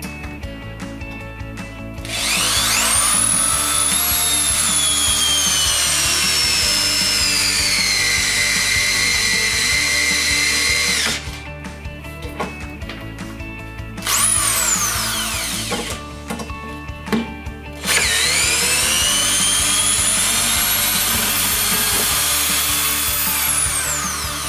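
ZUBR DSh-M3-500-2 corded drill-driver running in three spells over background music. The first run spins up fast and then slowly drops in pitch; a brief burst near the middle winds straight down; the last run climbs slowly in pitch and falls away as the motor stops near the end.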